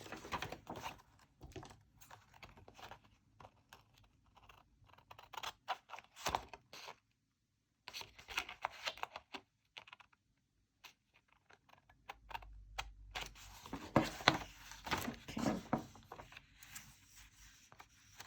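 Paper being cut with scissors and handled on a desk: scattered snips, rustles and scrapes with short pauses, busier in the last few seconds.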